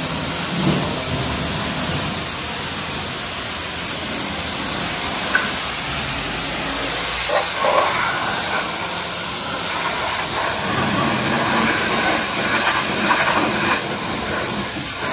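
Kärcher pressure washer spraying a high-pressure water jet: a steady, loud hiss of spray with the machine's pump running underneath, the jet aimed first at a concrete ceiling and then along a car's lower body and tyre.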